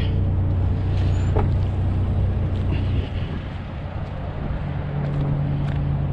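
GMC Sonoma pickup on the move: steady engine and road noise, easing off a little about three seconds in, then the engine note strengthening again near the end.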